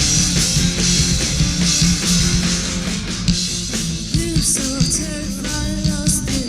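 Rock band playing live: electric guitars, bass and drums with crashing cymbals, and a wavering melody line with pitch bends coming in about halfway through.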